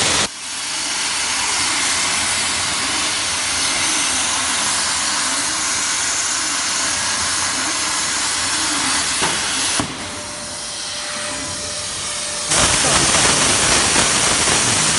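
Plasma arc of a CNC gantry plasma cutting machine cutting, a loud steady hiss. It drops in level about ten seconds in and comes back louder near the end.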